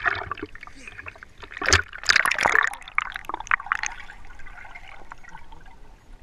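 Lake water splashing and sloshing around a swimming dog and a GoPro held at the surface, with loud splashes about two seconds in. After that comes steadier water noise as the camera is held underwater.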